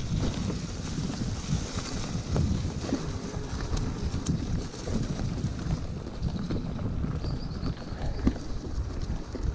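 Wind buffeting the microphone of a camera on a mountain bike riding a dirt trail, an uneven low rumble with scattered small clicks and rattles from the bike over the ground.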